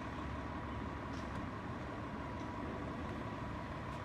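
Vehicle engines idling: a low, steady rumble, with a faint steady high tone over it.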